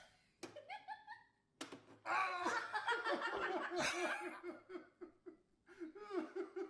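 A sharp snap from the Pie Face game's spring-loaded hand flipping up, then loud laughter from about two seconds in, pulsing at about four laughs a second.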